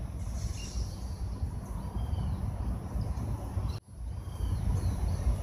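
Outdoor ambience: a steady low rumble with a few faint bird chirps over it. The sound drops out for an instant about four seconds in.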